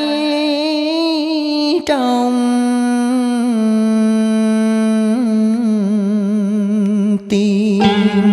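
A male cải lương singer holds a long sung vowel with a slow vibrato, breaks briefly about two seconds in, and holds a second long note until near the end. There a plucked guitar accompaniment takes over.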